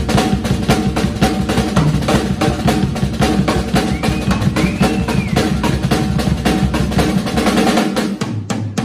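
Drum kit played solo: fast, dense strokes on the drums and cymbals with bass drum underneath, breaking off near the end into a few scattered hits.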